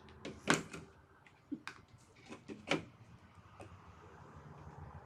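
A few light clicks and knocks of plastic toy parts and packaging being handled, about once a second, over faint rustling.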